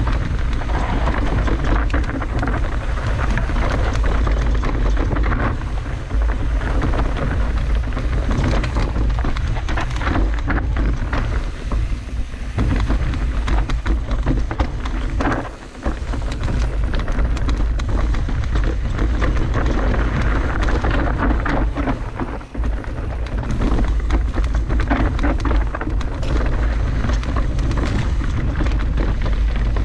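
Dense, rapid crackling of many bubble wrap bubbles popping at once, over a low rumble. The crackling dips briefly about 15 seconds in and again around 22 seconds.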